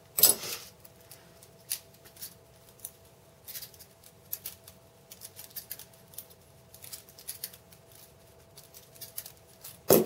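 Balisong (butterfly knife) being flipped through rollovers: irregular clicks and clacks of the handles and pivot pins, a few to the second, with a louder clack at the start and another just before the end.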